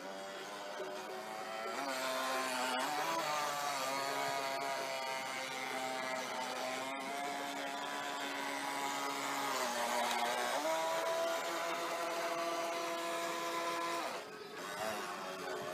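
Radio-controlled model boat's motor running with a steady buzzing whine, its pitch shifting up and down a few times as the throttle changes, and dipping briefly near the end.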